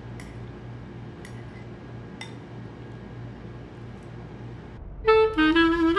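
A metal fork clinking three times against a ceramic bowl of ramen noodles, over a low steady hum. Near the end, loud jazzy saxophone music starts.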